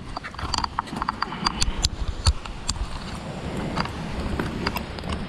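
Many irregular sharp taps and clicks over a low, steady rumble of wind and surf.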